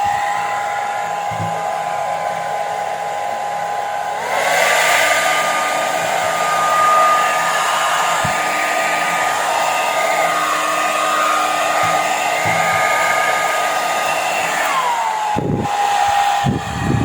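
Repaired Topmatic hair dryer running with its fan blowing again: a steady motor whine with rushing air. About four seconds in, the motor speeds up and the whine rises in pitch as the airflow gets louder. Near the end, it drops back to the lower speed.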